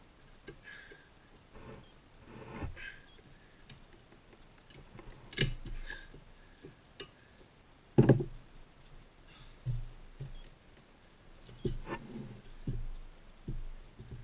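Scattered metal clicks and knocks from pliers working a seized, rusty toilet tank bolt, with the loudest knock about eight seconds in.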